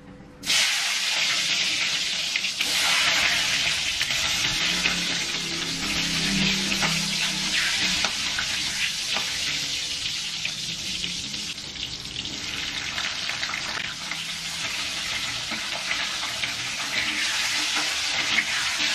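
Garlic, tomato slices and shallots sizzling in hot oil in a steel wok, starting abruptly about half a second in and then holding steady. A steel spatula scrapes and taps the wok now and then as the ingredients are stirred.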